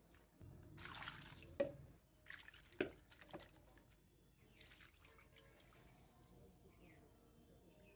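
Raw, wet chicken pieces being moved and stirred by hand in a stainless steel plate: a few soft wet handling sounds in the first half, with two sharp knocks about one and a half and three seconds in.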